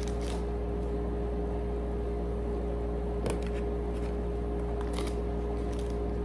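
Steady low mechanical hum from a room appliance, with a few brief rustles and clicks, about a quarter second, three seconds and five seconds in, as the food and its paper packaging are handled.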